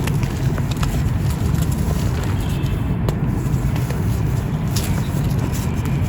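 Dry marble powder being crumbled, a steady gritty crunching with scattered sharp crackles over a low rumble.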